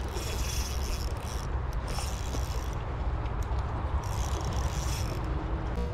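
Spinning reel clicking in three bursts as a hooked fish is played, over a steady low rush of flowing water.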